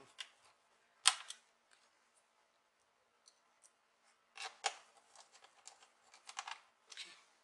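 Small laptop screws being set into the bottom case and worked with a small hand screwdriver. There is one sharp click about a second in, then a run of light clicks and scrapes from about four and a half seconds.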